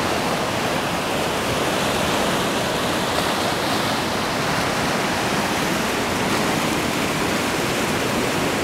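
Whitewater rapids rushing steadily down a pump-fed artificial slalom channel, a continuous even roar of churning water with no breaks.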